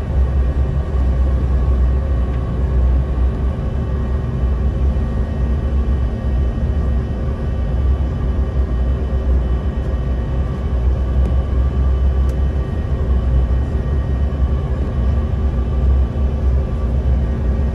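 Steady cabin noise inside a Bombardier CRJ-700 regional jet descending to land: a deep rumble of airflow and its rear-mounted turbofan engines, with faint steady tones above it.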